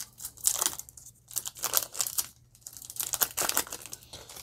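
Foil wrapper of a Yu-Gi-Oh! Toon Chaos booster pack crinkling and tearing as it is pulled open by hand, in several short crackling bursts.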